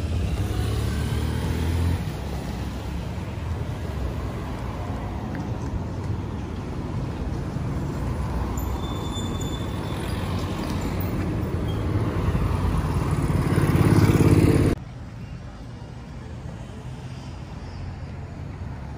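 City street traffic: a motor vehicle's engine rumbles close by and grows louder to a peak. About three-quarters of the way through it cuts off suddenly to quieter street sound.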